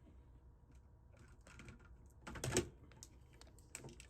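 Small clicks and rustles of a charging cable and a phone being handled, with a louder clatter about two and a half seconds in.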